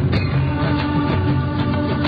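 Instrumental backing music with a steady beat and held tones, no singing.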